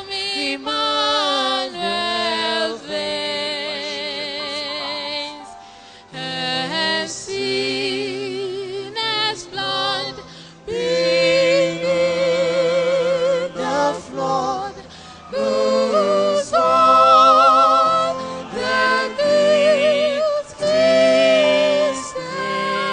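A single voice singing slow, drawn-out notes with a wide vibrato, in phrases broken by short pauses.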